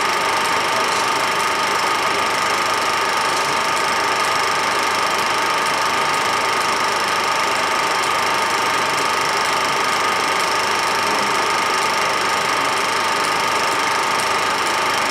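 A machine running steadily: a constant mechanical whirr with a steady whine that does not change.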